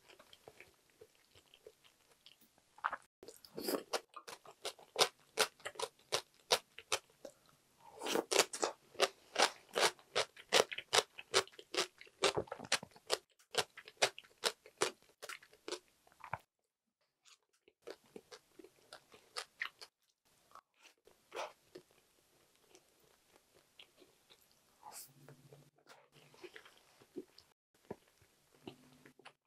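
Close-miked chewing of home-cooked Korean side dishes and rice, with crisp crunching at about three bites a second. About halfway it stops briefly, then goes on as softer, sparser chewing.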